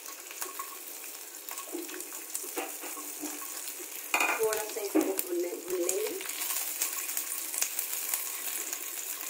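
Garlic cloves sizzling in a little hot oil in a wok, with a metal spatula scraping and stirring them near the end. A person's voice is heard briefly about four seconds in.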